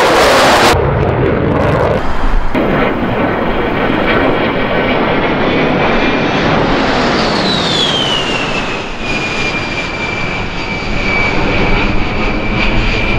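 Jet engine noise from military jets flying over, changing abruptly a couple of times early on. Then comes the high whine of an A-10 Thunderbolt II's twin TF34 turbofans, which falls in pitch about halfway through as the jet passes and then holds steady.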